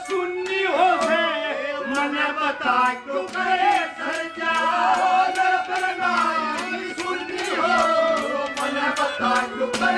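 A male singer performing a Haryanvi ragni over a microphone and PA, holding long, wavering notes over a steady drum beat.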